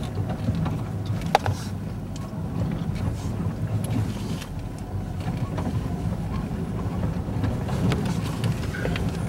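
Jeep engine running steadily at low trail speed, heard from inside the vehicle, with a sharp knock about a second and a half in and a few lighter rattles.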